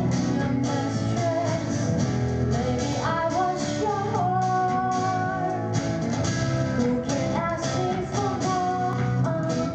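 Pop-rock song: a woman singing over guitars and a band with a steady beat.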